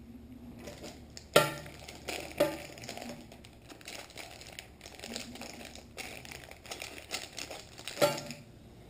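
Small clear plastic packets of fishing tackle crinkling and rustling in the hands, in irregular crackles with louder ones a little over a second in, about two and a half seconds in, and near the end.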